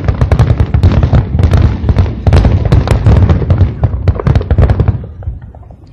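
Fireworks display: a loud, dense barrage of bangs in quick succession over a low rumble, thinning out and dying down about five seconds in.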